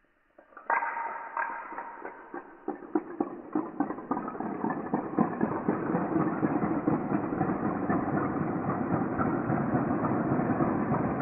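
A large fan of toy dominoes toppling on a tiled floor. A sharp click about a second in, then separate clicks that come faster and faster until they merge into a dense, steady clatter as the widening rows fall.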